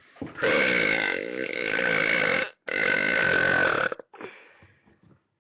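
Two long, loud belches from a boy, back to back: the first lasts about two seconds, and the second, just over a second long, starts right after a brief break.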